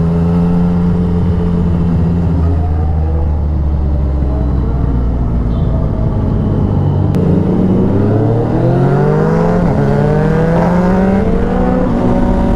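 Several sportbike engines, including a Ducati Panigale V4 with a performance exhaust, running loud and full on the road: a steady cruise, then from about seven seconds in the revs climb repeatedly as the bikes accelerate through the gears.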